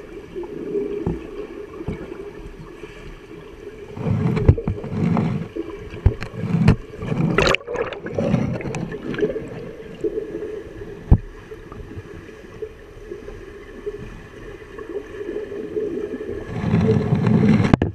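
A swimmer's strokes heard underwater: muffled splashing, bubbling and churning of water, pulsing with each stroke and loudest about seven to eight seconds in as the swimmer passes directly over the microphone, with another rise near the end.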